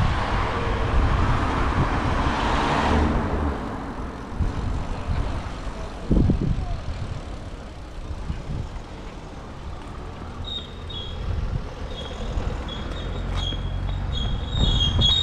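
Road traffic noise: a loud rush of noise for the first three seconds, a steady low rumble, a thump about six seconds in, and high thin squeaking in the last few seconds.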